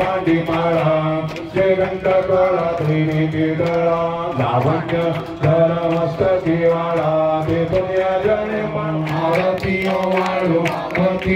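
A man's voice chanting Hindu puja mantras in a continuous sing-song melody, amplified through a microphone and loudspeaker.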